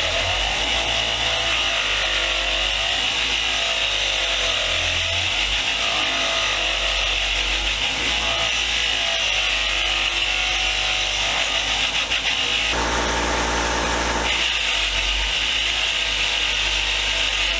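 Bench power tool running steadily with metal being abraded on it: a C-clamp being ground or wire-wheeled clean, a constant hiss. The sound changes briefly about thirteen seconds in.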